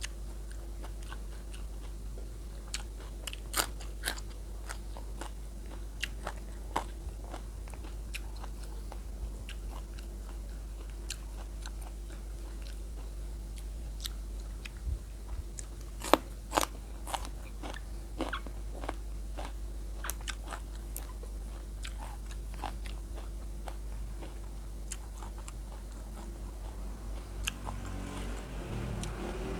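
Close-up eating sounds: chewing with irregular, crisp crunches of food in the mouth, over a steady low hum.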